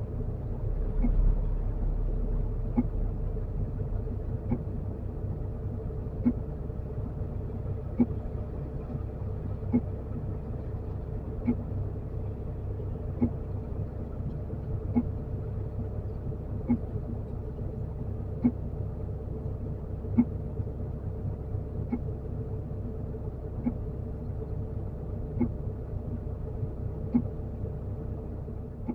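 Heavy earthmoving machine's diesel engine running steadily with a low rumble. A sharp click repeats evenly about every second and three quarters throughout.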